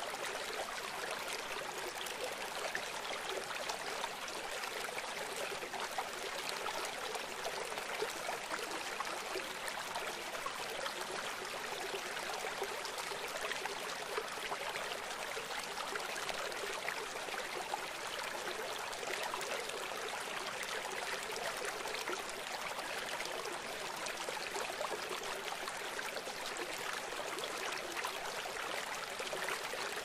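Small mountain river running fast and shallow over stones and gravel: a steady rush of water, bright and hissy, with little deep rumble.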